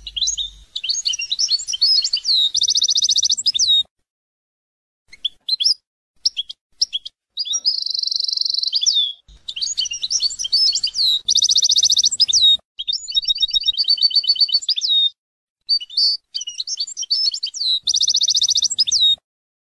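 European goldfinch singing in several phrases of quick twittering notes and glides mixed with buzzy trills, separated by short pauses. The song stops shortly before the end.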